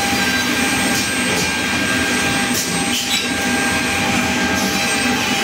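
Varolmak VB-8 edge banding machine running: a loud, steady mechanical whir from its motors, with a few constant whining tones on top.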